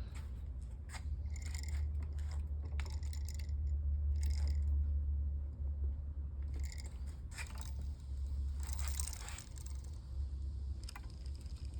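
Close-up handling noises of electrical wiring being worked by hand: scattered clicks, crunches and scrapes of wires and a switch, over a steady low hum.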